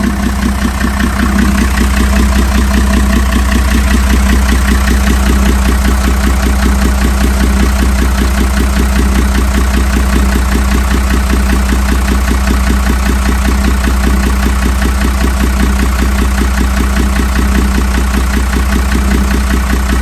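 Marine diesel engine running steadily at idle, loud, with a rapid even beat. It is kept running while a block tester checks its coolant for exhaust gases from a suspected head gasket leak.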